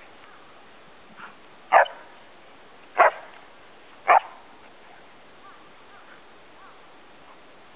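A Samoyed dog barking three times, short loud barks about a second apart, while at play.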